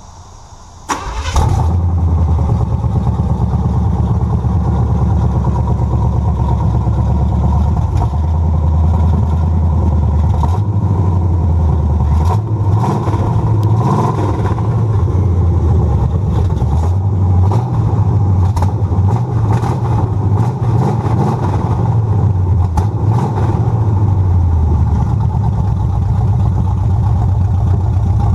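1985 Chevy C10 pickup's engine on a cold start: it catches about a second in after a brief crank and keeps running loudly, its speed rising and falling a few times in the middle.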